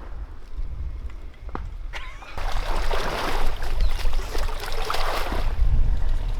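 Water splashing and sloshing, swelling up for a few seconds in the middle, over a steady low rumble.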